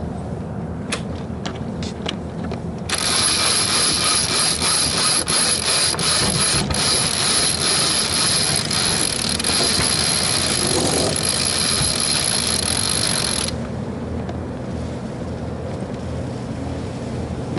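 Sailboat winch ratcheting as a sheet is cranked in, its pawls clicking rapidly in a dense rattle that starts abruptly about three seconds in and stops abruptly about ten seconds later. A few single clicks come before it, over steady wind and water noise.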